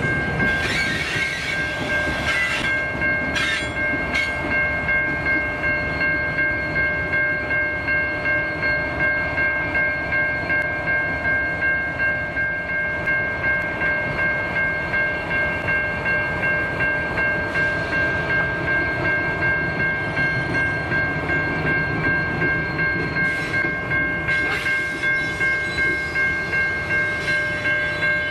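Level crossing warning bell ringing with an even pulse, about one and a half strokes a second, over the low running of the grain train's diesel locomotives and rolling wagons.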